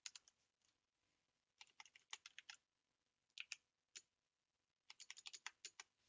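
Faint computer keyboard typing: rapid runs of keystrokes in several short bursts separated by pauses, as text is edited in a terminal editor.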